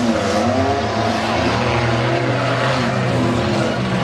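Engines of several modified race cars running together on a dirt track. Their pitches rise and fall over one another as they rev and ease off.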